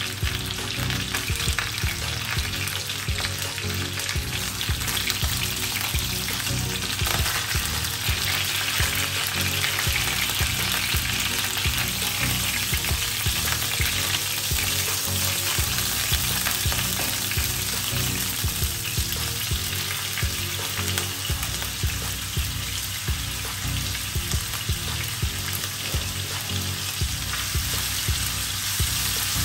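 Skin-on chicken thighs and then chopped bacon sizzling steadily in hot fat in a frying pan, with tongs turning and lifting the pieces.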